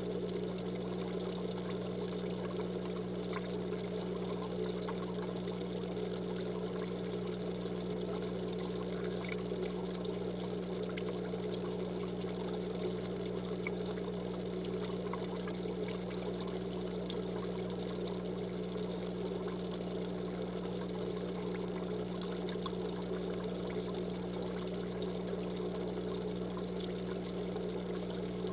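Aquarium filter running: a steady trickle of falling water over a low, even electrical hum.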